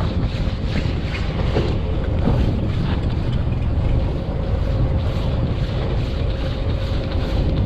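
Steady low rumble of a fishing boat's engine running, with a faint steady hum, and wind buffeting the microphone.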